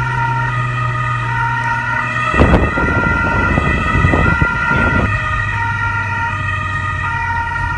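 Police car siren sounding steadily over vehicle engine noise, with a burst of louder noise from about two and a half to five seconds in.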